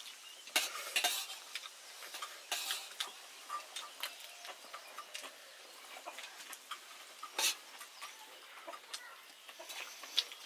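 Utensils scraping and clinking against dishware in an irregular run of short strokes, with a few louder scrapes about half a second in, near three seconds and about seven and a half seconds in.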